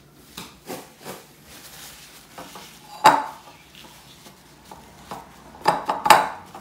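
A white ceramic pasta plate clinking and knocking on the countertop as it is handled and its rim is wiped with a paper towel: a few light knocks, then a sharp clink with a short ring about three seconds in and two more near the end.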